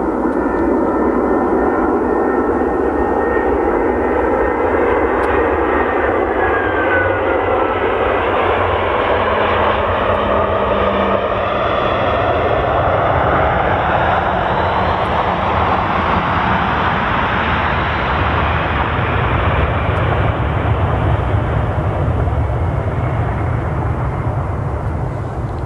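Airbus A320 airliner's twin jet engines running loud and steady as it passes along the runway. A whine falls in pitch about six seconds in, and a deeper rumble grows in the second half.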